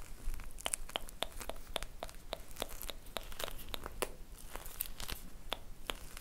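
Fingers handling an ice-cream squishy close to the microphone: a steady run of sharp little clicks and taps, about three a second, over soft crinkling.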